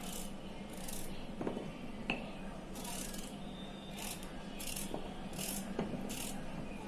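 Small kitchen knife slicing through raw beetroot held in the hand: a string of short, soft cutting strokes with a few light taps of the blade.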